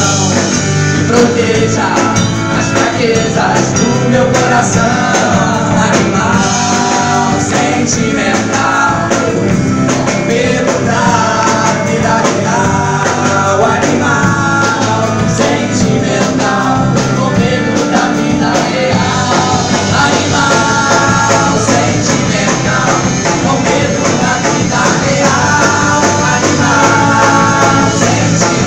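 Live pop-rock song from a small band: several male voices singing together into microphones over electric guitar and percussion.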